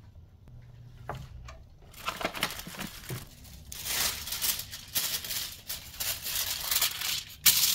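Aluminium foil being pulled out and crinkled, starting about two seconds in and loudest in the second half, with a sharp crackle near the end.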